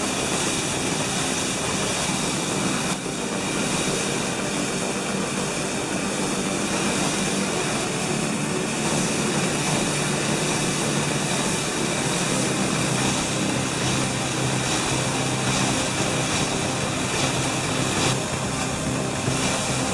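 Steady machinery noise: an even rushing drone with a few faint steady tones running underneath, without clear strokes or rhythm.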